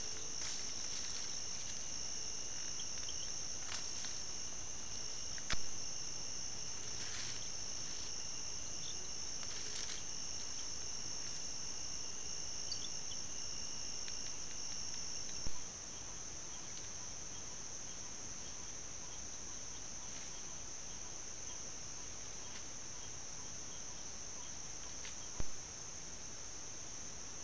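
Night insects calling in a steady, high-pitched chorus, with a second, lower trill that stops about halfway. A few brief rustles come in the first part, and three sharp clicks break in at even spacing.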